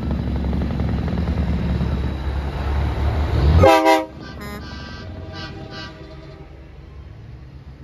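Semi truck driving past with its diesel engine rumbling and growing louder, then a short, loud air horn blast a little past halfway; the sound drops off sharply right after the horn.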